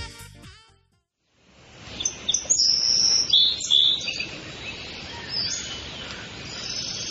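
Background swing-style music fades out, then after about a second of silence, birds chirping over a steady outdoor hiss.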